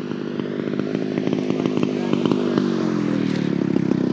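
Engine of a giant-scale 110-inch RC Spitfire running as the model comes in low on its landing approach. It grows steadily louder, and its pitch drops near the end.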